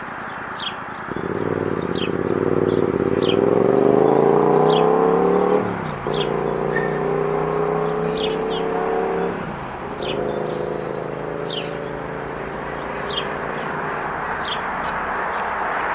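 Car pulling away and accelerating, its engine pitch climbing steadily for several seconds, then dropping at a gear change about six seconds in and running on at a steady pitch, with another brief dip near ten seconds.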